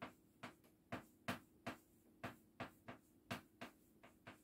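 Stick of chalk tapping on a blackboard as a character is written stroke by stroke: a string of short, sharp ticks, unevenly spaced at about three a second.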